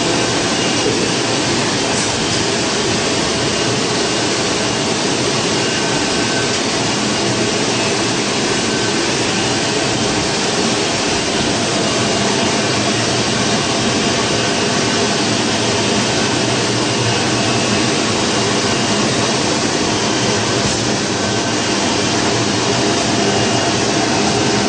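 Softgel encapsulation machinery running: a loud, steady mechanical whir with faint humming tones, unchanging throughout.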